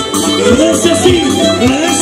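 Live Andean harp-and-violin music: a lively dance tune with gliding violin-like melody lines over a steady bass and an even beat.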